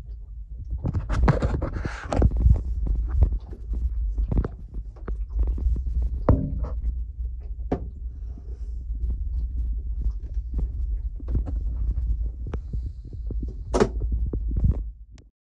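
Handling noise from a handheld camera being moved around a cramped boat cabin: a steady low rumble with irregular knocks and thumps, and a brief louder rustle about a second in. The sound cuts off abruptly just before the end.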